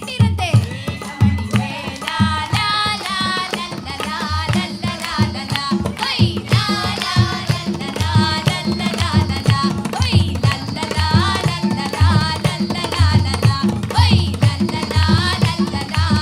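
Music: a song with a singing voice over steady hand-drum strokes, in an Indian classical style.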